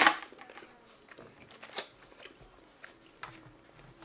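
Eating sounds: chewing and the clicks and scrapes of plastic forks in foil takeout trays, with one sharp click right at the start.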